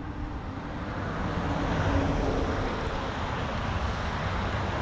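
A vehicle passing, swelling to its loudest about two seconds in and easing off, over a low rumble of wind on the microphone.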